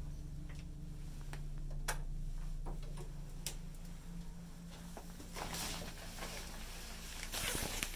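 A steady low hum in a small tiled bathroom, with scattered light clicks of handling. There are two short rustles in the second half as a plastic shower curtain is pushed aside.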